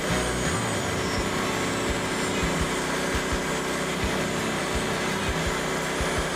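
Frontier OS27 portable bandsaw sawmill running, its engine holding a steady note with a broad whirring hiss from the band blade.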